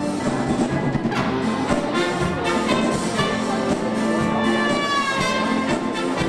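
Live dance band playing polonaise music, with brass carrying the melody in held notes and a falling phrase near the end.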